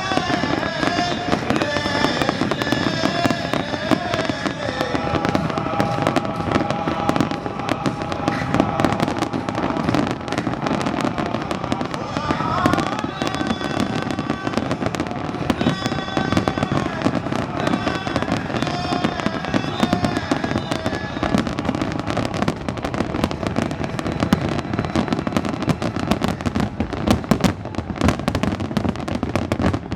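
Fireworks display, a dense, continuous run of bangs and crackles with no pause.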